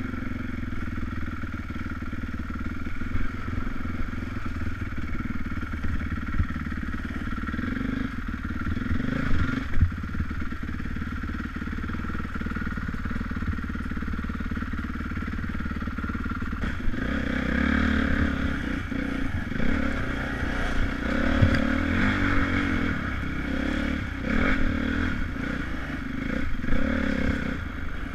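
Dirt bike engine running and revving up and down while riding a rough forest trail, heard from a helmet-mounted camera, with frequent knocks and rattles from the bumps. The engine gets louder and busier about two-thirds of the way through.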